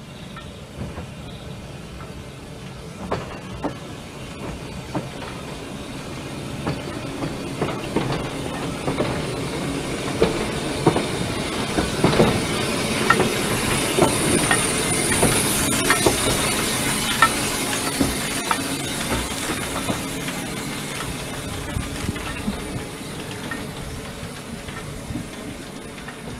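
Narrow-gauge steam train passing close, its wheels clicking over the rail joints, growing louder to a peak midway and then fading. A burst of steam hiss joins in around the loudest part.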